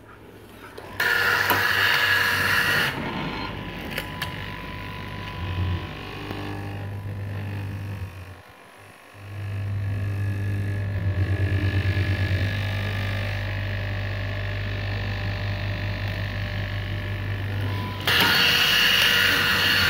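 Electric straight-knife cloth cutting machine running, its vertical reciprocating blade cutting through a tall stack of fabric layers: a steady low hum, with louder, hissier stretches about a second in and near the end. The hum stops for about a second roughly eight seconds in, then starts again.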